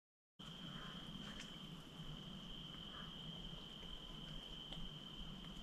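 An insect's steady, unbroken high-pitched trill, cutting in just after the start, over a low background rumble with a few faint ticks.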